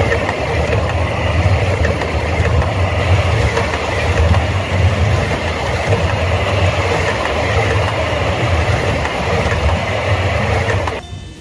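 Railroad cars rolling directly overhead on the track: a steady, loud rumble of steel wheels on the rails. It cuts off suddenly near the end.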